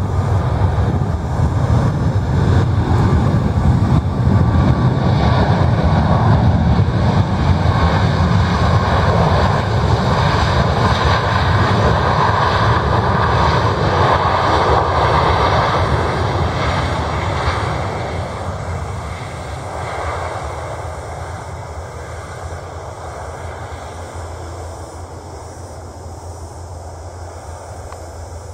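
Boeing 737 MAX 9 airliner's CFM LEAP-1B turbofan engines roaring as the jet rolls along the runway after landing. The noise is loudest as it passes at about the halfway point, then fades steadily as it moves away.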